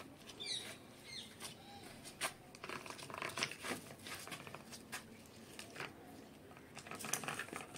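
Faint scattered clicks, scuffs and scrapes of a puppy in a homemade PVC-pipe wheelchair moving over a concrete floor, its paws and small wheels on the concrete. A brief high squeak about half a second in.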